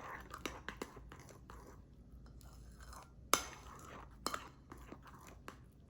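A spoon stirring a thick mixture of condensed milk, milk powder and ghee in a microwave bowl: soft scraping with scattered small clicks of the spoon against the bowl, and a sharper knock a little over three seconds in.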